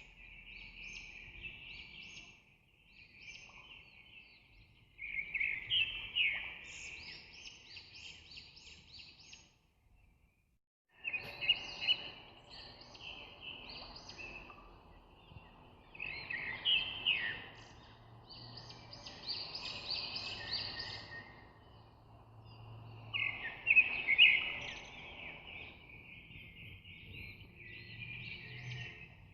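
Birds chirping in dense, overlapping runs of short high notes, with a brief break about ten seconds in.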